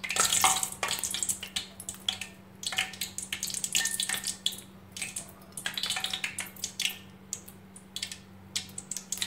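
Cooking oil in a frying pan on the stove, with light irregular crackles and drips as the oil goes in and starts to heat, over a steady low hum.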